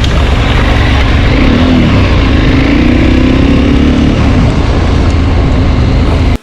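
KTM 1290 Super Adventure S V-twin engine running under way, heavy wind rumble on the microphone over it. The engine note shifts up and down a little through the middle.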